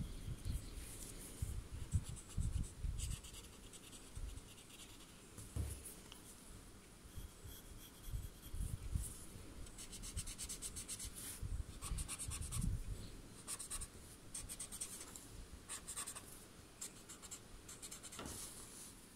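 Pencil and a pointed white shading tool scratching and rubbing on a paper tile in runs of quick back-and-forth strokes, with soft low knocks from the hand and tile against the table.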